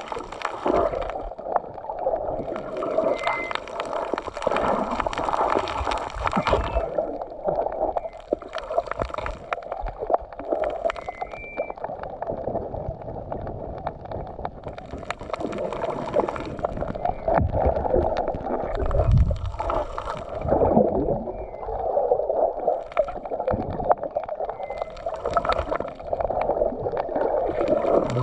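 Underwater water noise picked up by a camera held below the surface: continuous muffled gurgling and swishing of water, with brighter hissing stretches lasting a few seconds each.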